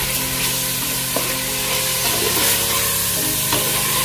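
Pork pieces sizzling as they brown in a stainless steel pot, stirred with a spatula that knocks against the pot about a second in and again near the end. Soft background music with long held notes plays underneath.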